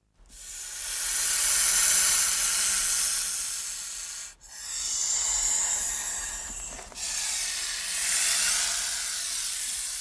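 Rattlesnake buzzing its tail rattle: a continuous high hissing buzz in three long stretches, with brief breaks about halfway through and again a few seconds later.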